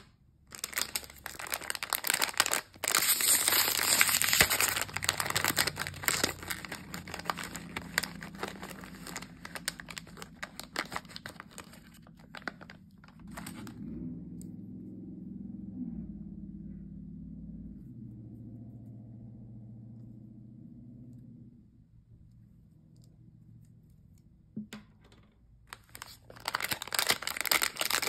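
Foil blind bag being torn open and crinkled in the hands, a loud, busy crackling for about twelve seconds. Then only softer, low handling sounds while the plastic bag-clip figure is turned over. Another foil bag starts crinkling and tearing near the end.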